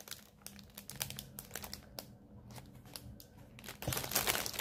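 Crinkling of a cross-stitch kit's packaging as it is handled: scattered soft crackles that grow denser and louder near the end.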